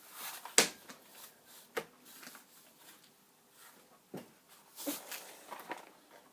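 Handling noise from unpacking clothing and packaging: scattered rustles and soft knocks, the loudest a sharp knock about half a second in.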